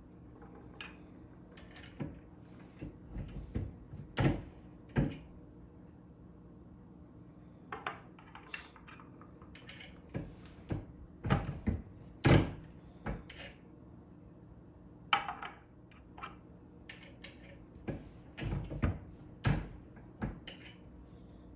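Single-stage reloading press being worked to crimp .357 Magnum cartridges: scattered metal clicks and clunks from the handle and ram, and brass cases knocking as they are set into and taken out of the shell holder and a plastic loading block.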